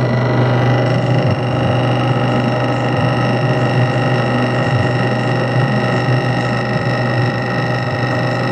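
Milling machine, a Jet, running at about 1400 rpm while cutting aluminum to face it flat: a steady hum with a steady high tone over it.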